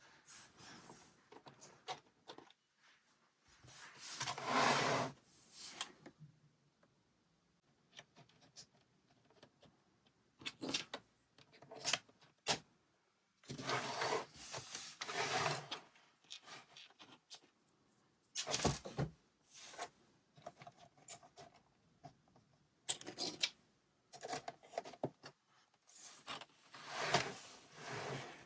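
LEGO bricks being handled and assembled: scattered clicks of plastic pieces and several longer rustling scrapes, as of rummaging through loose pieces, a few seconds apart.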